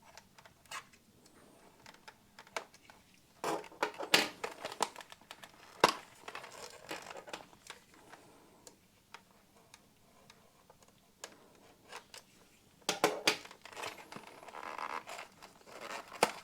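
A cardboard retail box being handled and torn open: crinkling and tearing comes in bursts about four seconds in and again near the end, with scattered small clicks and taps between.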